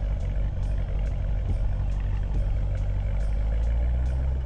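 Car engine running with a steady, deep low rumble.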